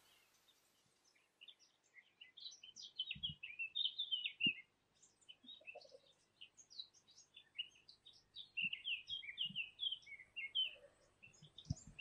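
Songbirds singing in quick chirping phrases, starting about a second and a half in, with two faint low knocks at about three and four and a half seconds.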